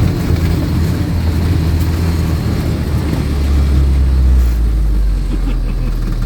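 UAZ off-road vehicle's engine running with a steady low drone, its pitch dipping a little about halfway through.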